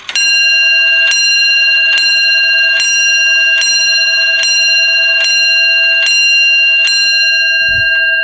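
Mid-1700s Samuel Bentley English grandfather clock striking the hour on its bell: nine evenly spaced hammer blows on the same bell, a little under a second apart, with the ringing carrying on and fading after the last. The strike is loud because the hood is off the movement.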